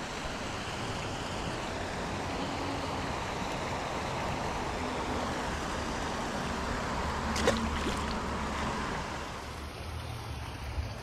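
Steady rushing of water from small man-made waterfalls into a pond, with one sharp tap about two-thirds of the way through.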